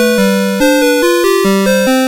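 CITIZEN Melody Box 30 electronic melody alarm clock playing a tune in beeping chip tones: a melody line over a simple accompaniment, the notes changing a few times a second.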